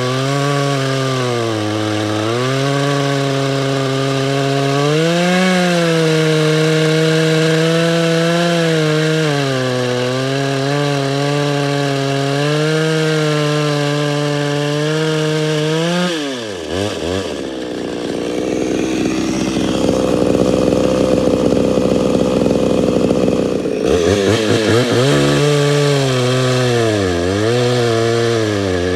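Homelite 240 two-stroke chainsaw running at high throttle while cutting through a log, its engine note wavering up and down under load. About halfway through the pitch drops sharply, and for several seconds the sound turns rough and noisy before the engine note climbs back.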